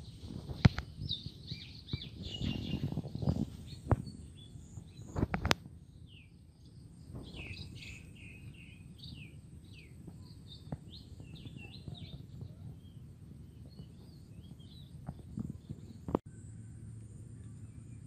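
Small birds chirping in quick, repeated short calls. In the first few seconds there are several sharp knocks and some rustling, from the camera being handled or from brushing against the branches.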